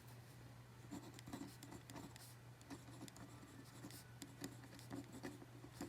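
Pencil lead scratching faintly on paper in a series of short writing strokes, over a low steady hum.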